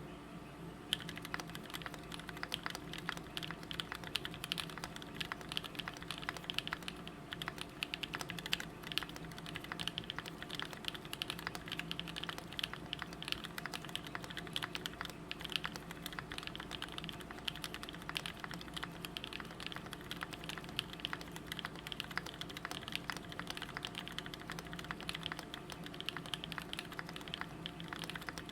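Fast, continuous typing on a custom mechanical keyboard (KCL x Syryan Design EM8 with an aluminium plate, PrimeKB Cobalt switches lubed with GS2, and GMK keycaps): a dense run of key clacks that starts about a second in.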